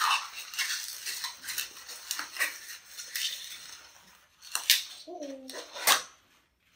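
Inflated latex modelling balloon squeaking and rubbing as it is twisted by hand into a small lock bubble, with a few sharper snaps of the latex between about four and a half and six seconds in.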